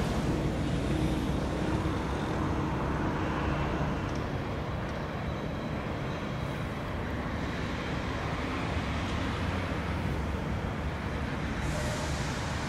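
Steady low rumbling outdoor background noise with no distinct events; a brighter hiss comes up near the end.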